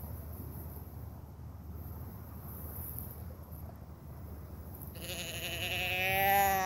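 A deer bleat call: one long, wavering, nasal bleat about five seconds in, growing louder and cutting off sharply, blown to try to turn a buck off a doe's trail.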